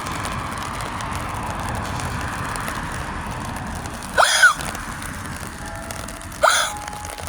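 Steady hiss of rain, with two short rising squeaks about four and six and a half seconds in.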